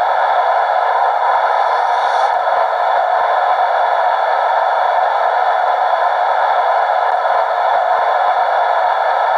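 Recorded Class 91 electric locomotive running sounds played by a DCC sound decoder through a model locomotive's small speaker: a steady, even noise with no deep bass, with a faint higher sound briefly about two seconds in.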